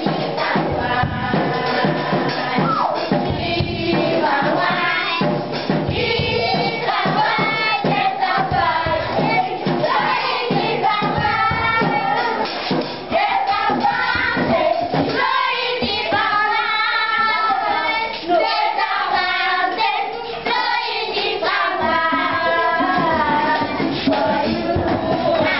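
A group of children and women singing a lively worship chorus together, with a steady beat of sharp percussive strokes running through it.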